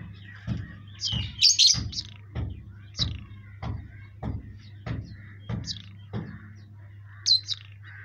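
Caged lovebirds and budgerigars chirping in short, shrill calls, loudest about a second and a half in and again near the end. Under them is a regular knocking about every 0.6 s that stops a little past six seconds, with a steady low hum.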